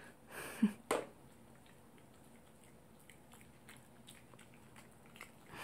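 Toy poodle chewing a Greenies dental chew, faint irregular clicking crunches of teeth on the chew. A few short louder sounds come in the first second.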